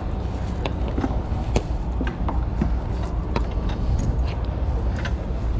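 Steady low rumble with scattered sharp clicks and rubs: handling noise from a chest-worn GoPro action camera as the wearer settles into a go-kart seat and the belts go on.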